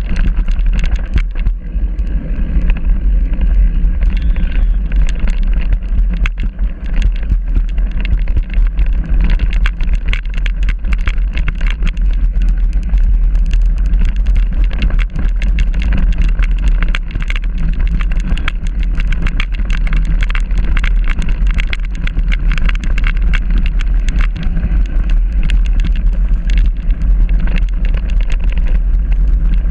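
Mountain bike rolling over a gravel track, heard through a camera mounted on the bike: a steady low wind rumble on the microphone under constant irregular clatter and clicks from the tyres on stones and the bike rattling.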